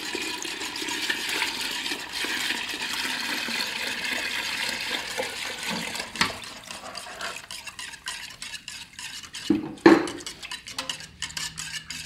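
Sugar syrup pouring in a steady stream into a basin of lemon-peel-infused alcohol for about the first half. Then a whisk stirring the liquid and clicking against the basin, with one sharp knock near ten seconds in, the loudest sound.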